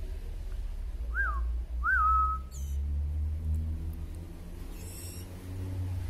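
Two clear whistled notes, each rising then falling, the second ending in a short held tone. They are followed by two brief bursts of high, thin begging cheeps from songbird nestlings (white-rumped shama and magpie-robin chicks), over a steady low hum.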